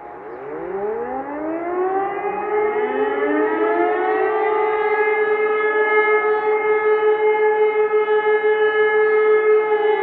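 Motor-driven civil-defense siren starting up for its monthly test: it winds up in a rising wail for about four seconds, then holds a steady tone.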